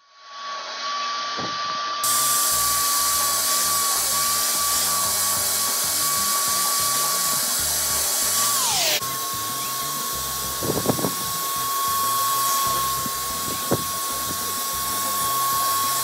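Black & Decker wet-and-dry vacuum cleaner starting up and running, a steady high whine over a rush of air. About nine seconds in the whine drops in pitch and cuts off, then it is running again at full speed, with a few short knocks as the nozzle works along the sofa.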